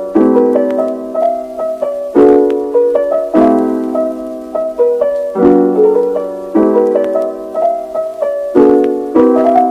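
Intro music on a piano-like keyboard, with a new chord struck about every second and ringing on under a simple melody.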